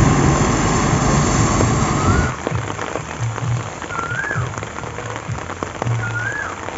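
Steady rain falling, louder with a low rumble for the first two seconds, then quieter. A short rising-and-falling call repeats about every two seconds over the rain.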